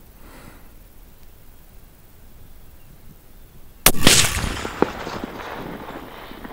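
A single shot from a Remington 700 VLS bolt-action rifle in .308 Winchester. A sharp crack comes about four seconds in, followed by a rolling echo that fades over about two seconds, with a few light clicks in the tail.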